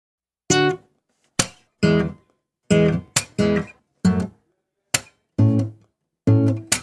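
Short, choppy guitar chords struck one at a time with brief gaps between them, about a dozen in all, starting about half a second in: the instrumental intro of a pop song before the vocals come in.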